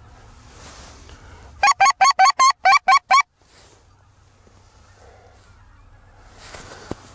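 Hand-blown goose call (manok) sounding a quick run of about eight loud, short honks over a second and a half, calling to lure passing geese in.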